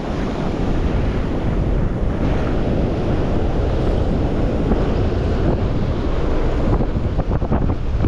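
Strong wind buffeting the microphone over rough surf breaking and washing across the rocks, a steady loud rush.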